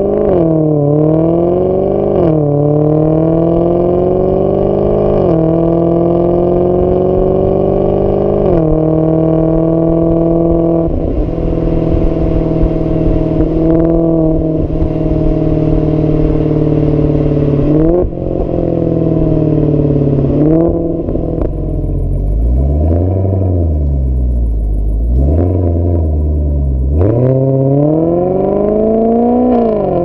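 Exhaust of a Maserati GranTurismo's naturally aspirated 4.2-litre V8, fitted with the GranTurismo S active valve exhaust, heard at the tailpipe while driving. The revs climb and drop back at four upshifts in the first ten seconds, hold steady for several seconds, fall away, swing up and down a few times, then climb again under acceleration near the end.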